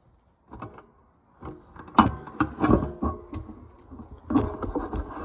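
A cut tile being handled and moved into place: irregular knocks, clinks and scrapes, the loudest about two seconds in and again near the end.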